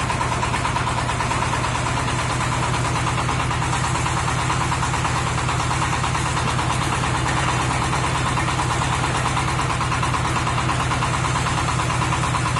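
Engine of a portable hydraulic water-well drilling rig running steadily at an even speed, with a fast, even pulse, between drilling strokes while the drill rod is being changed.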